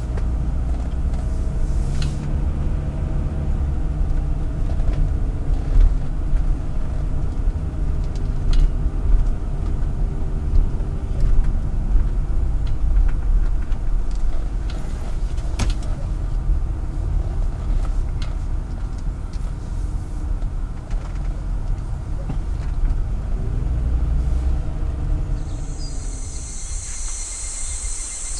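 Low rumble of a car's engine and tyres heard inside the cabin while driving, with a few light knocks. Near the end the rumble drops away and a steady high insect buzz and a few bird chirps take over.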